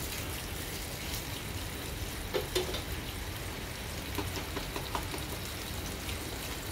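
Pork frying in a frying pan: a steady sizzle with scattered small crackles.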